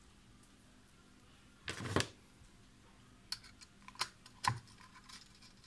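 Small handling sounds of wiring a screw terminal block: a short scuffing rustle about two seconds in as a stripped wire is handled, then a few sharp, separate clicks of a screwdriver tip on the metal terminal screws.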